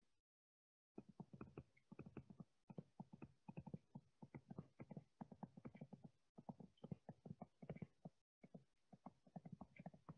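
Faint, rapid tapping and clicking of a stylus on a tablet or touchscreen while handwriting an equation, starting about a second in, with a couple of brief pauses where the pen lifts.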